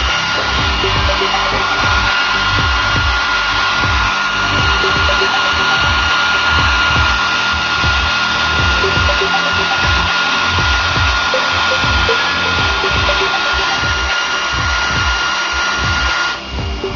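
Electric air blower running at full speed with a steady high motor whine and a loud rush of air, blowing dust out of the PC's CPU area; it switches off near the end.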